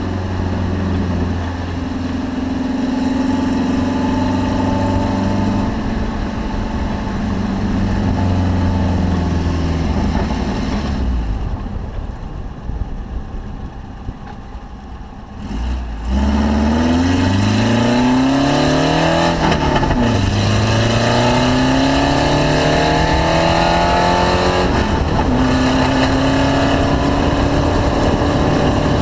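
Car engine on a track lap: running at steady speed, easing off for a few seconds, then accelerating hard with the pitch rising through the gears, dropping at two upshifts.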